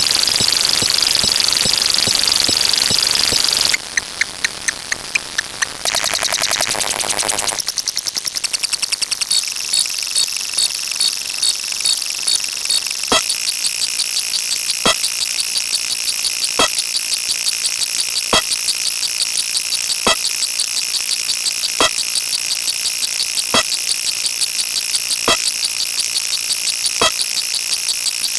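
A string of electronic sound effects that changes every few seconds: first a dense high-pitched hiss, then rapid pulsing buzzes, then a steady shrill alarm-like tone with a sharp click repeating about every second and a half to two seconds.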